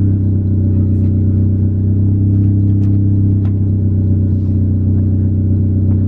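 Car engine idling steadily, an even low hum, with a few faint clicks over it.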